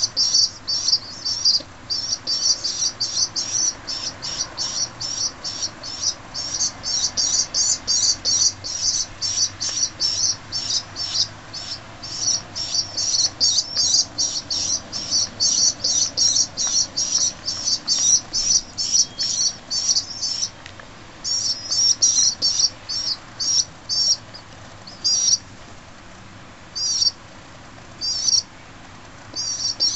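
Young feral pigeons peeping: a rapid run of short, high-pitched squeaks, three or four a second, that thins to scattered calls about two-thirds through and picks up again at the end.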